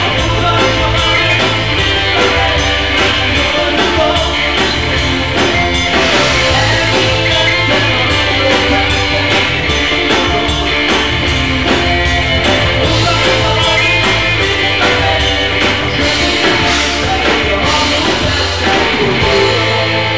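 Live rock band playing: electric guitar, bass guitar and drum kit together, with steady drum and cymbal strokes. The drums stop right at the end, leaving a held chord ringing.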